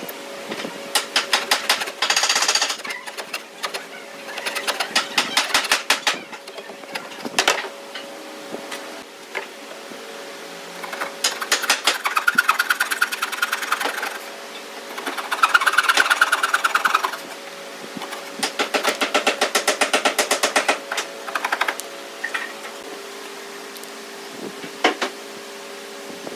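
A coping saw cutting by hand into a softwood board in rapid short strokes, in several bursts of a few seconds each with short pauses between. A steady hum runs underneath.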